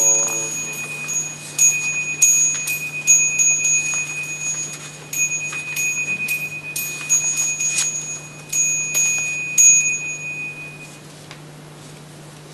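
A small Buddhist ritual bell rung over and over after a sutra chant, about twenty quick, uneven strikes with a bright, high ring that carries between them. The strikes stop near the end and the ringing fades out.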